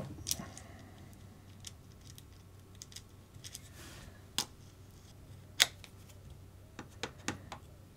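Scattered small clicks and taps of small kit parts and a tool being handled while a lock nut is fitted onto a screw. There are two sharper clicks a little past the middle and a few more near the end.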